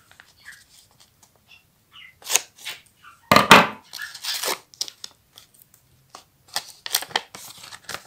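A folded paper packet is cut open with scissors and pulled apart: a series of short paper rustles, snips and tears, the loudest about three and a half seconds in.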